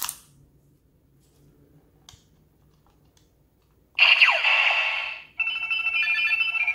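A single sharp plastic click, then about four seconds in the DX Fourze Ridewatch toy plays its electronic sound effects through its small speaker: a burst of noisy whooshing with gliding tones, then after a brief break a steady electronic chime of several tones.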